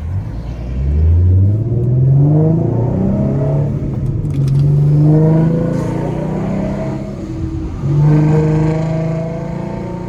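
A 2014 Ford Mustang's 3.7-litre V6, breathing through BBK shorty headers and a Roush axle-back exhaust, pulling hard under acceleration. The engine note climbs in pitch over the first couple of seconds and holds high through the middle. It dips around seven seconds in, comes back up about a second later, then eases off near the end.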